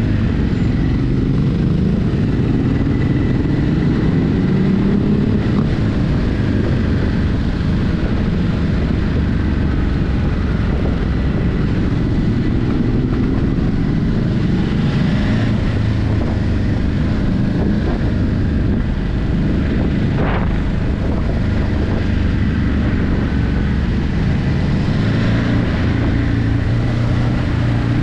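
Ducati Hypermotard 950's 937 cc L-twin engine with stock exhaust, heard on board while riding, its revs rising and falling as the throttle and gears change.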